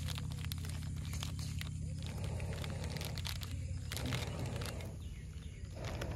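Small plastic salt packet crinkling and crackling as it is torn open and handled, over a steady low background rumble.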